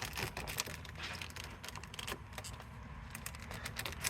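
Handling noise: scattered light clicks, taps and rustling as small metal parts and tools are moved about, here the battery tie-down bracketry being fetched and fitted.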